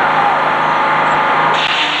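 Antique Frick sawmill running: a steady engine drone under a loud rushing noise, while a sawn board is dragged across the mill. A brighter hiss joins about a second and a half in.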